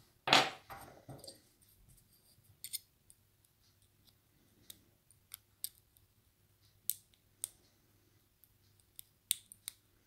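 Faint, scattered metallic clicks and ticks of a steel pick working inside a brass lock cylinder, prying at a stuck pin spring, about nine light clicks spread irregularly. A short, louder noise comes just after the start and fades within about a second.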